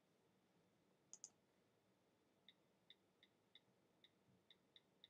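Faint typing on a computer keyboard. A sharper double click comes about a second in, then a run of soft keystrokes at about three a second.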